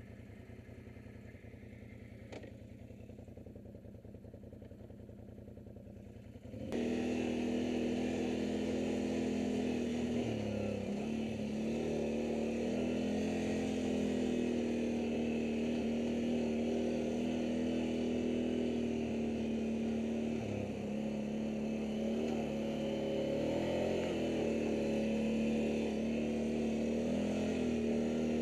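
ATV engine idling quietly, then, after an abrupt jump in level about seven seconds in, running louder as the quad rides along a dirt trail, its pitch dipping and rising with the throttle over a steady hiss.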